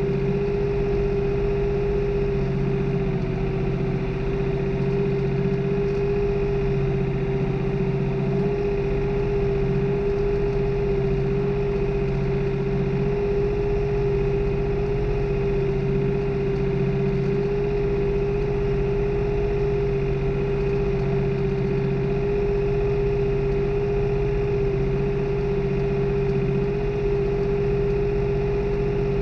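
New Holland tractor's diesel engine running steadily under working load during tillage, heard from the driver's seat, with a steady whine on top and no change in speed.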